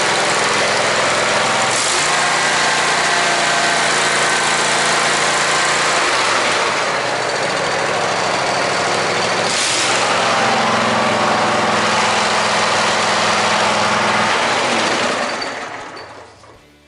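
Kohler Courage SV715 22 hp V-twin mower engine running steadily just after an oil and filter change, circulating the fresh oil. It is shut off near the end and winds down to quiet.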